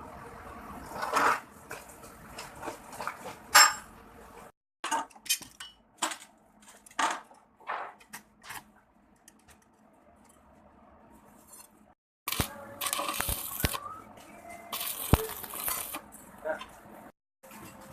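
A series of sharp clinks and knocks of metal on metal, spaced irregularly, followed in the second half by stretches of rushing noise with a few dull knocks.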